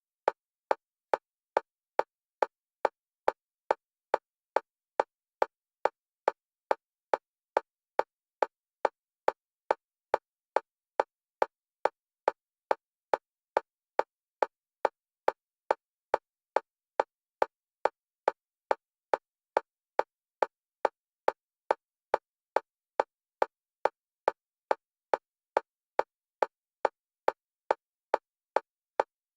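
Electronic metronome click at a single pitch, repeating evenly about twice a second and alternating between the left and right stereo channels for EMDR bilateral stimulation.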